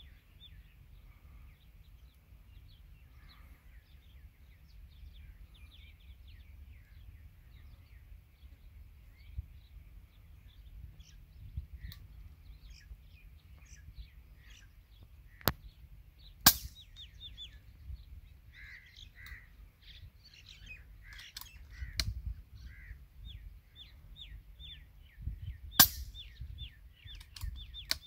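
Small birds chirping and calling over a steady wind rumble on the microphone, with several sharp cracks in the second half, the shots of a PCP air rifle fired at doves.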